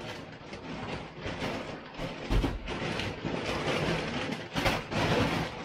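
A plastic shopping bag rustling and crinkling without a break as groceries are handled, with a few louder crackles.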